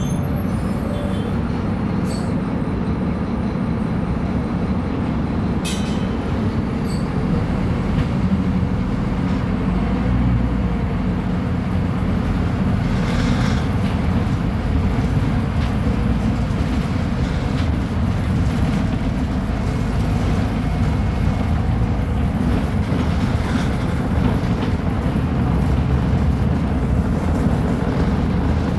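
Scania K310UB bus diesel engine running, a steady low drone with road and body noise around it.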